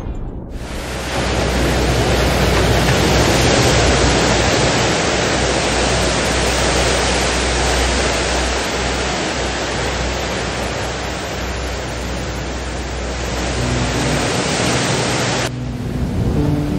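A steady, loud rushing noise that cuts off abruptly about a second before the end. A few held music notes enter shortly before the cut.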